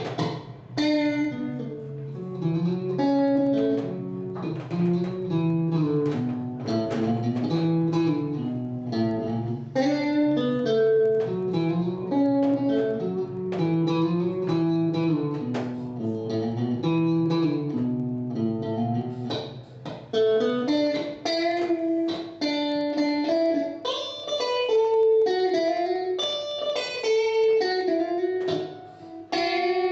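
Solo guitar picking a melodic line of separate plucked notes, with no singing.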